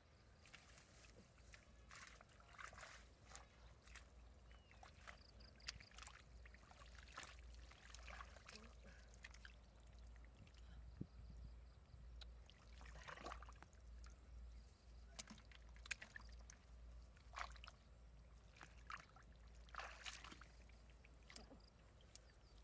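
Faint, irregular sloshing and splashing of shallow muddy water as hands grope through it and legs wade.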